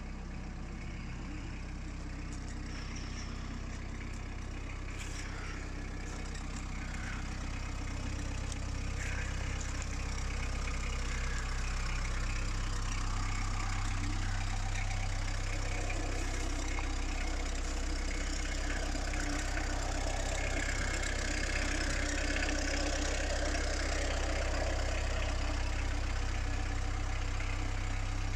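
Citroën C15 van engine idling steadily, growing a little louder partway through.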